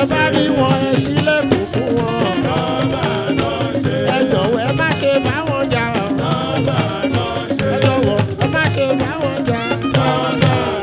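Fuji music playing loudly, with dense percussion strikes under pitched instrumental lines that bend and glide in pitch.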